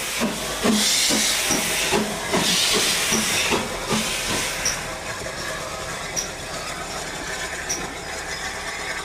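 Steam locomotive exhaust chuffing at about three beats a second, with loud bursts of hissing steam in the first few seconds. It then eases to a quieter, steadier hiss.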